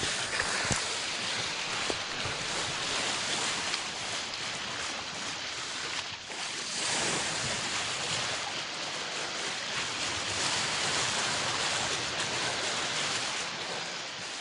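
Bow wave of a sailboat under way rushing and hissing along the hull, a little louder for a few seconds in the middle, with wind on the microphone.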